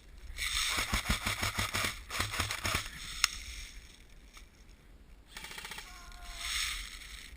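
Airsoft guns firing on full auto: a long burst of rapid clicking shots, a single sharp crack a little after three seconds, then a second burst about five seconds in.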